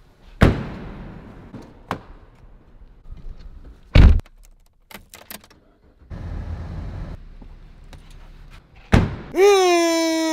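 Car body thunks: a trunk lid and doors shutting, with the loudest slam about four seconds in, a quick run of small clicks after it and a second of rushing noise about six seconds in. Near the end a person's voice lets out a long, drawn-out wail that falls at its end.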